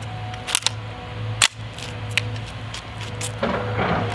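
Steady low hum of backhoe engines running in the background, with a few sharp clicks about half a second and a second and a half in as a CO2 BB gun is handled and shouldered.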